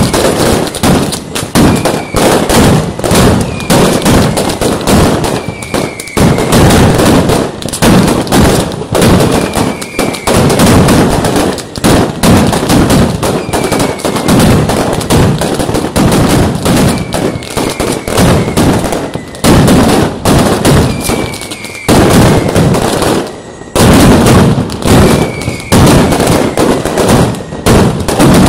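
Mascletà: a dense, continuous barrage of firecracker bangs (masclets) going off in rapid succession at ground level. A short falling whistle recurs about once a second over the bangs.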